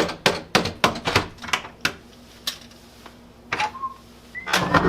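Rapid sharp taps, about four a second and then a few spaced single knocks, with another quick cluster near the end: hinge pins being knocked out of an old solid-wood door's hinges to take the door off.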